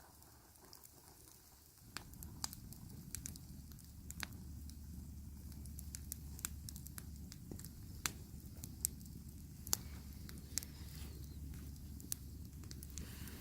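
Long-log campfire crackling, with irregular sharp pops over a steady low rumble.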